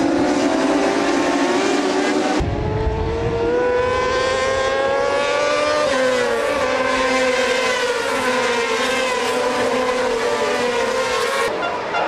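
A pack of racing motorcycles at high revs, several engines heard at once, their pitch climbing steadily as they accelerate; the sound shifts abruptly twice.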